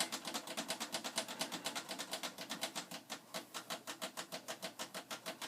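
A monitor's selector switch being flicked back and forth rapidly, a fast even clicking of about eight clicks a second, to work freshly sprayed contact cleaner into a switch suspected of being faulty.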